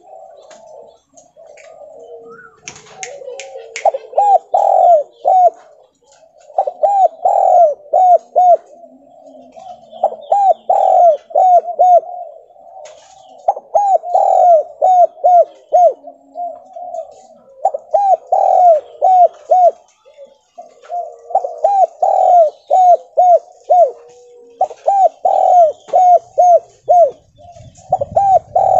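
Spotted dove (tekukur) cooing in its stuttering ('gagap') song: about eight phrases, each a longer coo followed by a quick run of short notes, repeated every three to four seconds. Faint chirps of small birds in the background.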